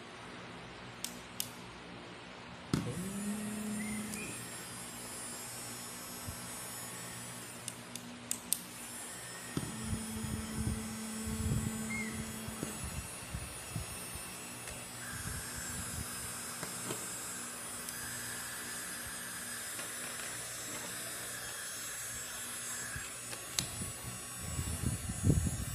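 Small vacuum motor of a V-Comb electric lice comb, which spins up with a short rising whine about three seconds in and then runs steadily with a hum and a high hiss of airflow. A few clicks of handling come before it starts and again near the end.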